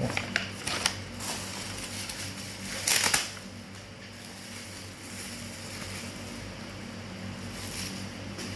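Handling of unboxed items and packaging: a few light clicks, then a louder rustle about three seconds in, over a steady low electrical hum.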